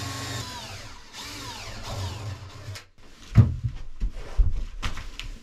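Cordless drill boring a hole through a wooden cabin wall: the motor whines and winds down just after the start, then runs again with its pitch rising and falling. It stops a little past halfway, followed by several loud knocks and thumps.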